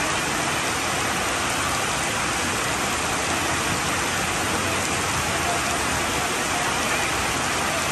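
Steady, even hiss of noise with no rhythm or distinct impacts.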